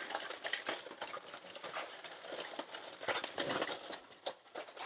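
Aluminium foil being unwrapped by hand, crinkling in quick, irregular crackles that thin out near the end.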